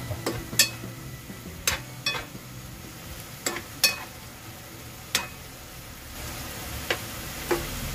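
Pakbet with chicken cooking in a pan, stirred with a utensil that knocks and scrapes against the pan about eight times at irregular intervals, over a faint steady sizzle.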